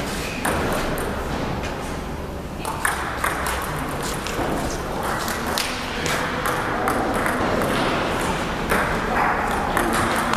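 Table tennis rally: the celluloid ball clicking off the paddles and bouncing on the table, a quick, uneven series of sharp clicks over steady background noise.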